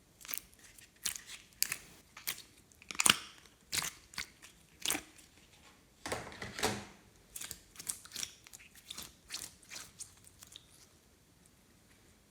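Hands kneading and squishing glossy slime, making irregular wet crackles and pops as trapped air bubbles burst, some in quick clusters.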